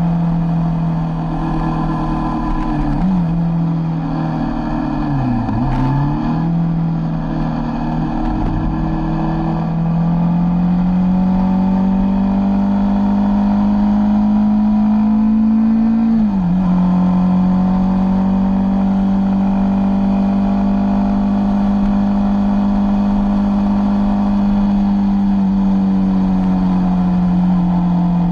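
Sport motorcycle engine running at road speed, its note dipping and wavering a few seconds in, then rising slowly in pitch and dropping sharply about sixteen seconds in as it shifts up a gear, then holding steady.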